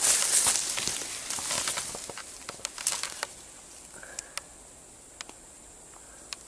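Rustling of forest undergrowth being pushed through on foot, with scattered twig snaps and clicks; the rustling dies down after about two seconds, leaving only occasional clicks.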